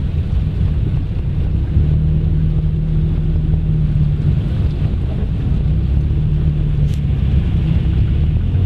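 A car driving through floodwater: a steady low engine hum under a rushing hiss of water and tyre noise. The engine note grows stronger about two seconds in.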